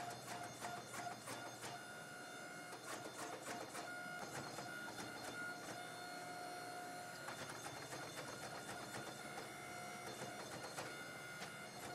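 Hydraulic forging press working a white-hot Damascus billet during forge welding: a steady mechanical whine under many small crackling ticks.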